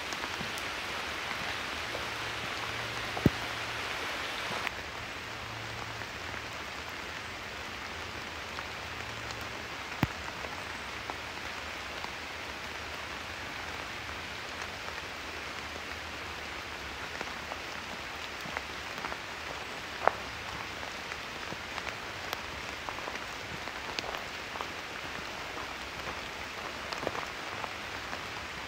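Steady rain falling in a forest: an even hiss with scattered single drops hitting close by, the loudest about three, ten and twenty seconds in. The hiss gets a little quieter about five seconds in.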